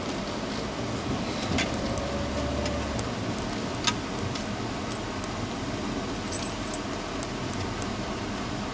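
Car cabin noise while driving slowly: the engine and tyres running steadily, with a few light clicks and rattles inside the car, the sharpest about four seconds in.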